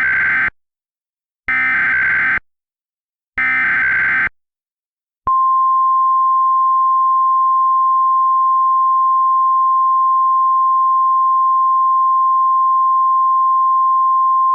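Emergency Alert System header: three roughly one-second bursts of screeching data tones, a second apart, the first already under way. Then comes a single steady alarm tone held for about ten seconds, the warning tone that announces an emergency message.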